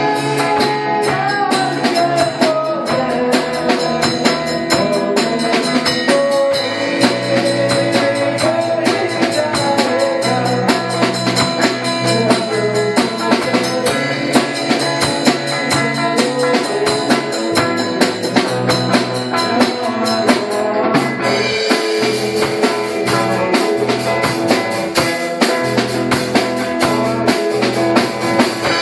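A band playing a song with a steady beat on drum kit and guitar, with a wavering lead melody over it. About two-thirds of the way through, the cymbals come in fuller and brighter.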